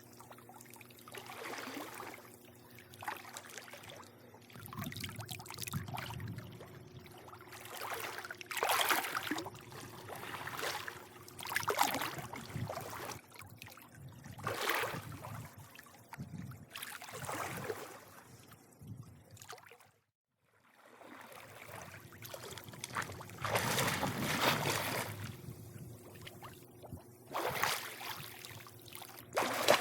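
Swimming-pool water lapping and sloshing in irregular surges, some louder than others, over a steady low hum. The sound cuts out completely for about a second around two-thirds of the way through, then the lapping resumes.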